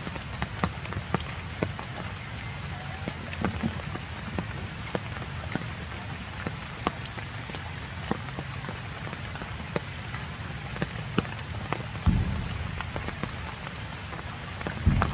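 Rain pattering on a surface in irregular light ticks over a steady low rumble, with a low thump about twelve seconds in and another near the end.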